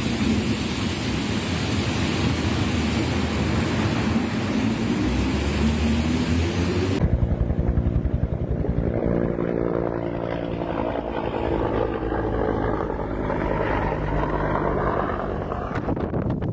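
A dense, even rushing noise for about seven seconds, then abruptly a propeller aircraft's engine drone, its pitch shifting as it passes.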